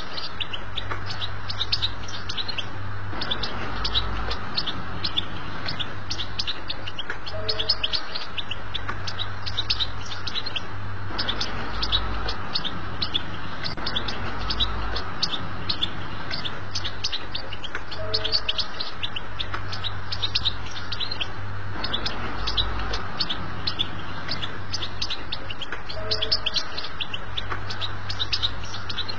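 European goldfinch singing a fast, continuous twittering song of rapid high chirps, the chattering 'betbta' style used to tutor young goldfinches. Under it run a steady hiss and a low hum, and a brief low two-note tone returns about every eight seconds.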